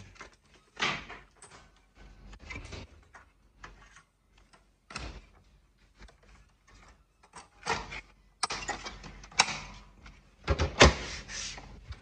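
Kyocera 4002i copier's plastic and metal covers and panels being handled: irregular clunks and clicks, the sharpest knocks in the last third.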